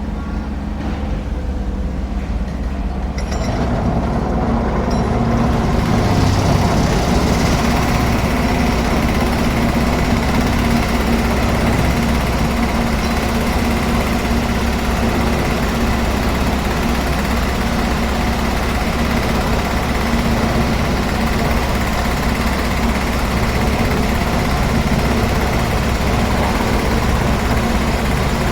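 Diesel engine of heavy construction machinery running steadily with a low hum, getting louder about three to four seconds in and then holding steady.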